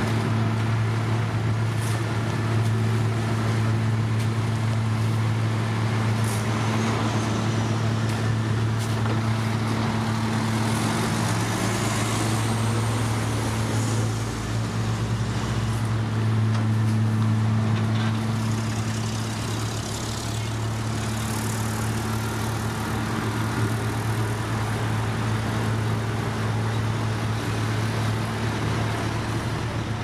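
Diesel engines of an asphalt paver and the tipper truck feeding it, running steadily with a constant low hum. About twelve seconds in, a rising engine note passes through briefly.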